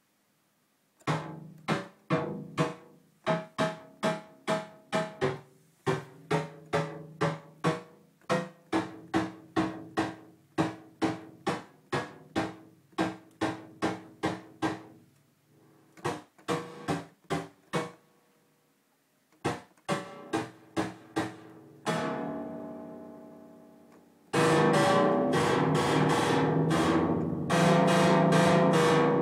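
Moog Voyager analog synthesizer playing short, plucky pitched notes in a quick pattern of about two or three a second, with a couple of brief gaps. Near the end one longer note fades out, then a much louder, brighter, buzzing sound sets in with notes repeating over it.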